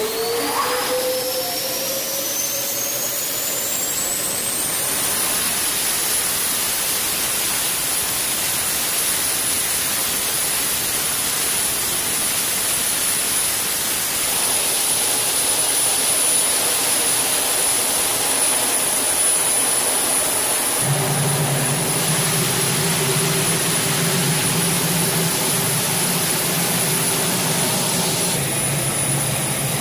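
F-22 Raptor's Pratt & Whitney F119 turbofan spooling up on start: a high whine rises steadily over the first five seconds, then holds at one pitch over a loud rushing hiss. A lower hum joins about two-thirds of the way through.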